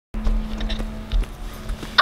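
Children's running footsteps on asphalt, with low rumbling thumps on the microphone and a steady low hum underneath.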